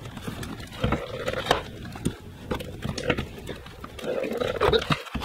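Nissan Juke's plastic factory air intake and its rubber accordion tube being twisted and worked free by hand: irregular knocks, clicks and rubbing as the duct comes loose.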